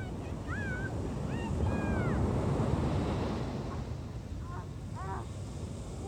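Ocean surf washing onto a sandy beach, one wave swelling to its loudest two to three seconds in, with wind buffeting the microphone. A few short, high, arching calls sound in the first two seconds and again about five seconds in.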